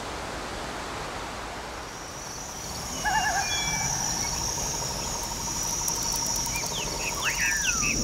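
Forest ambience: a steady rushing hiss, then from about three seconds in birds calling with warbling and whistled notes over a high, steady insect buzz and trill. Quick falling chirps come near the end.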